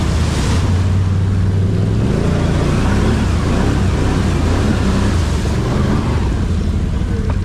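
Vehicle engine running under way with road and wind noise, a steady low hum whose pitch wavers a little through the middle.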